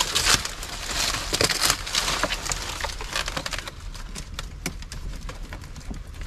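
Crackling and snapping of dry plant debris being pulled apart and broken, dense and loud for the first couple of seconds, then lighter scattered clicks.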